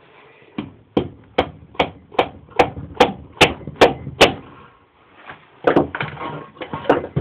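A regular run of about ten sharp knocks, about two and a half a second and getting louder, then a pause and a few irregular knocks near the end: striking work on a small mower engine while the flywheel is being fitted.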